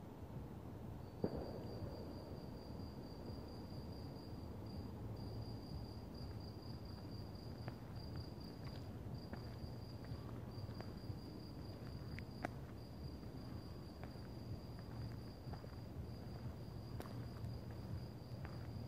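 An insect trilling steadily at a high pitch in the night woods, with a few short breaks, over a low background rumble. A single knock sounds about a second in, and a few faint clicks follow later.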